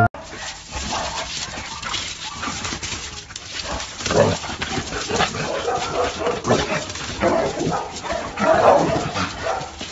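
Dogs barking and whining in repeated bursts, the loudest about four seconds in and again near the end.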